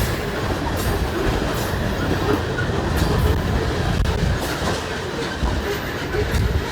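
Coal train's freight cars rolling past, a steady heavy rumble with the wheels clicking irregularly over the rail joints.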